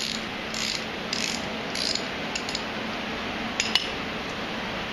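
Socket ratchet clicking on its backstrokes as a motorcycle fork's top cap is unscrewed, about two strokes a second at first, then a few sharp metallic clicks near the end.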